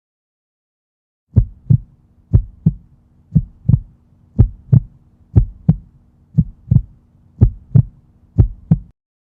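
Heartbeat sound effect: eight double thumps (lub-dub), about one a second, starting after a second of silence, over a faint low hum.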